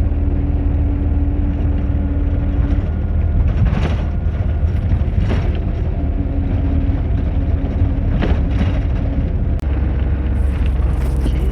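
Steady low rumble of a moving road vehicle heard from inside the cabin, with a faint steady hum and a few light knocks.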